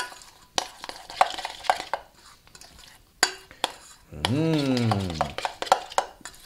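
A spoon stirring a thick relish of ketchup, mustard and diced pickles in a stainless steel bowl: irregular clinks and wet scrapes of the spoon against the metal. About four seconds in, a short low tone rises and then falls in pitch for about a second.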